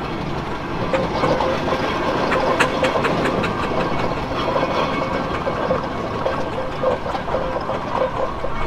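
Steam roller running under way: a steady hiss of steam with faint, fairly regular exhaust beats.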